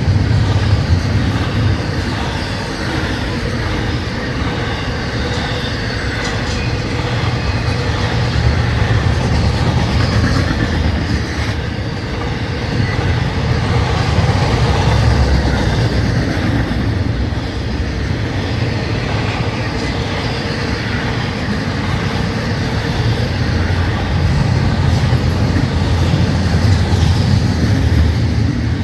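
Florida East Coast Railway intermodal freight cars rolling past, a steady loud rumble of steel wheels on the rails with some clatter.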